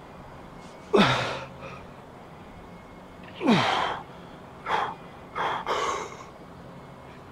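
A man breathing out hard under heavy pendulum squat reps. There are two loud gasping exhales about two and a half seconds apart, each with a grunt that drops in pitch, followed by three shorter, quicker breaths.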